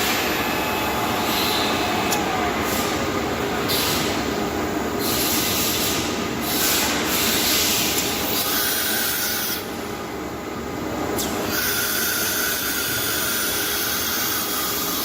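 Holemaster 4000 X Line CNC drilling machine running: steady mechanical noise with several short hissing bursts, and a steady whine that comes in for a second or so and again for the last few seconds.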